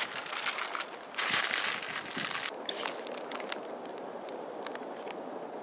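Bread being crumbled by hand, a dry crackling and crunching that grows louder about a second in and stops suddenly after about two and a half seconds, leaving a faint steady outdoor hiss with a few small ticks.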